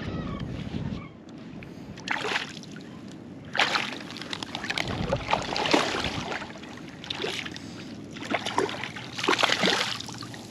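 Hooked speckled trout thrashing and splashing at the water's surface in several short bursts, a second or two apart.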